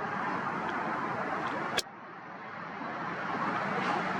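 Steady background hum of distant road traffic, with a single sharp click a little under two seconds in, after which the noise dips and slowly swells back.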